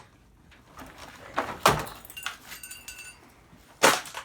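Loose metal tools or parts being handled and set down. A sharp metallic clank about a second and a half in, then a faint ringing, and a second clank near the end.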